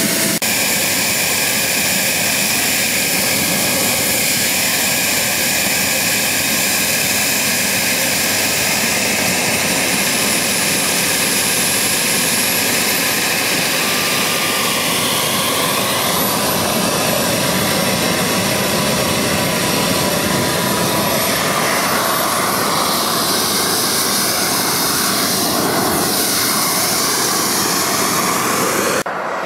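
The small jet turbine of a radio-controlled de Havilland Vampire model running, a steady rushing roar with a thin high whine that rises about ten seconds in and then holds.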